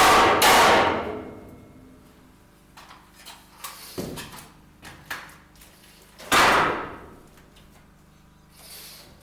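Hammer blows on the steel of a shipping container door: a fast run of loud ringing strikes ends about a second in, followed by a few light knocks and one more loud, ringing strike about six and a half seconds in.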